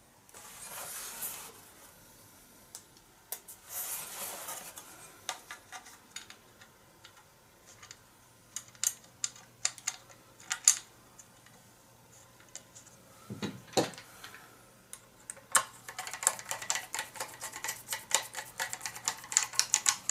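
Small screws and parts handled with two short rustles and scattered clicks, then a screwdriver driving a screw through a ceiling fan blade into its metal blade bracket, with dense rapid clicking for the last few seconds.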